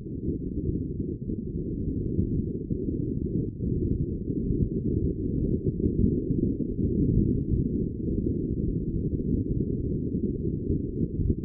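Muffled, low rushing rumble of wind and water noise aboard a racing sailboat, with no distinct events.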